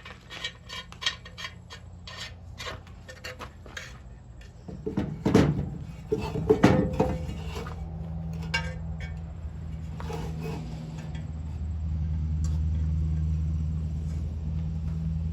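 Metal parts clinking and rattling as they are handled, with a louder clatter about five to seven seconds in. A steady low hum starts about eight seconds in and keeps going.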